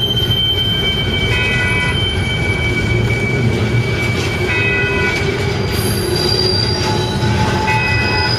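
Double-stack container train of TTX well cars rolling past close by: a steady rumble of steel wheels on rail, with wheels squealing in several high-pitched tones that come and go and change pitch throughout.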